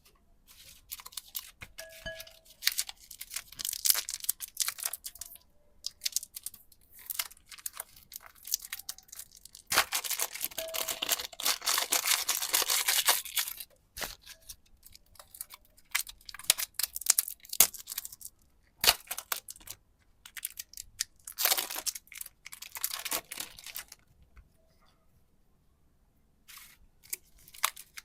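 Plastic packaging of super clay being torn open and crinkled by hand, in irregular bursts with one longer stretch of about three seconds about ten seconds in.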